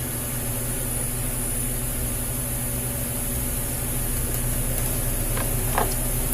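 Steady low machine hum with a high hiss, and two or three faint clicks about five seconds in.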